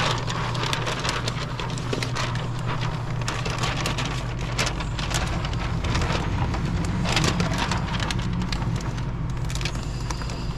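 Sheet of wet window-tint film crackling and rustling as it is handled, with dense irregular crinkles over a steady low hum.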